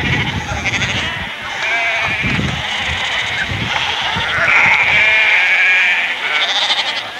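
A large flock of Icelandic sheep bleating in a crowded fold, many calls overlapping, with one long bleat about halfway through.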